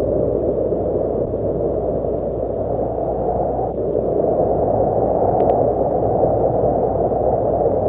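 Wind blowing steadily: a low, even rushing noise that swells and eases a little.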